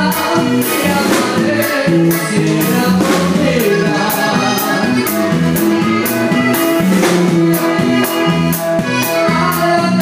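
Latin group band music with singing: a drum kit keeps a steady beat under a stepping bass line.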